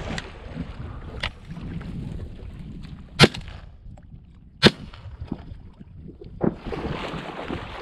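Two loud shotgun shots about a second and a half apart, follow-up shots at a wounded duck still moving on the water, with a couple of fainter sharp cracks around them.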